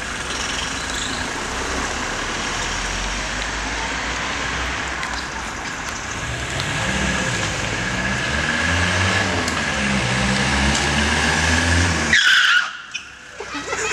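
A car engine running, then revving up and down over the second half, ending in a short falling screech like a tyre squeal about twelve seconds in before the sound cuts off suddenly.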